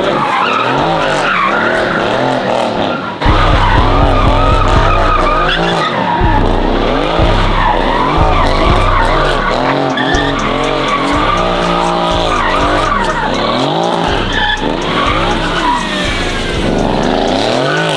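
Sports car doing donuts: the engine revs up and down over and over while the tyres squeal and skid on the pavement.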